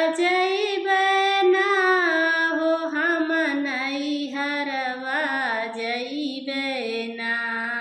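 A woman singing a Bhojpuri kajri folk song unaccompanied, drawing out long, ornamented notes that waver and glide in pitch.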